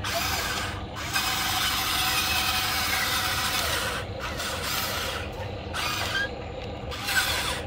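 Electric gear motors of a Huina remote-control model excavator whirring and grinding in several bursts as the boom, arm and upper body are driven from the remote. The longest run lasts about three seconds.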